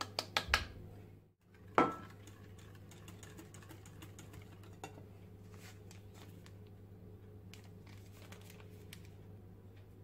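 Kitchen handling sounds around a glass mixing bowl: a few sharp clicks, then one loud knock with a brief ringing tone about two seconds in, followed by faint scattered clicks and rustles over a low steady hum.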